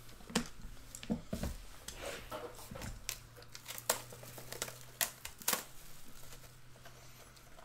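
Football trading cards and their pack wrappers being handled: a string of sharp clicks and crinkles as cards are shuffled, stacked and a pack is torn open.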